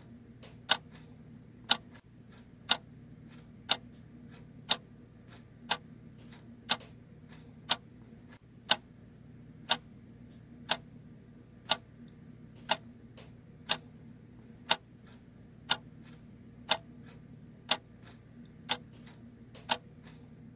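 Clock ticking steadily, about one sharp tick a second with a fainter tick between each, over a faint low hum.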